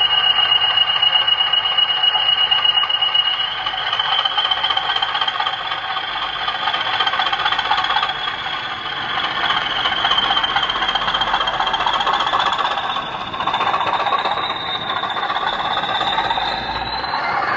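Model railway DCC sound decoder playing a Class 20 diesel locomotive's engine sound through a pair of small iPhone speakers, running steadily under power. A high turbocharger whistle sits over the engine note and rises slowly in pitch.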